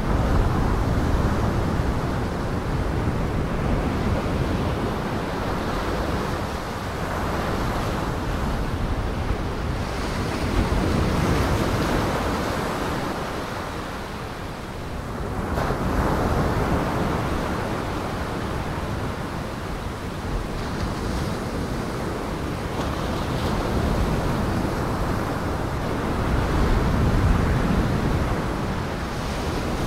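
Rushing noise of strong gale wind and surf, with wind buffeting the microphone; it swells and eases every few seconds, dipping about halfway through and rising again near the end.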